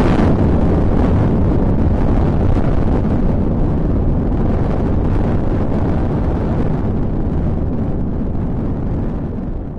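Rocket launch sound effect: a loud, steady rushing rumble, heaviest in the low end, that fades near the end.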